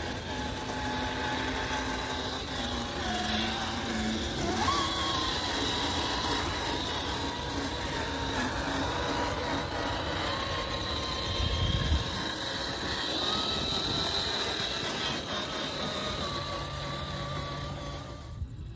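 Rlaarlo MK-07 1/7-scale RC crawler's brushed motor and gearbox whining as it drives over rough ground, the pitch rising and falling with the throttle. There is a brief low thump about two-thirds of the way through.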